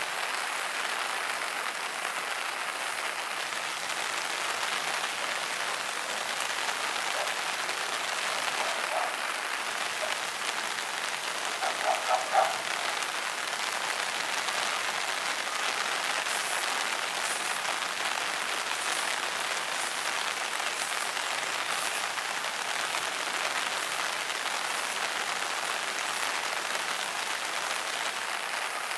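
Steady rain falling, an even hiss. About twelve seconds in, three short pitched squeaks stand out above it.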